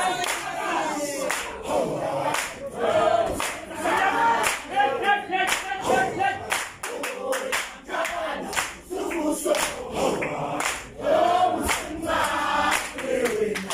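A group of voices singing together in chorus, with sharp beats in a steady rhythm throughout.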